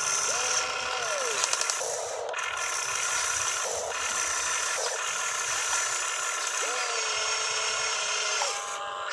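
Electric motors of an RC excavator whining as the boom, arm and bucket move. The pitch rises as a motor spins up, holds, then falls as it stops, about a second in and again near the end.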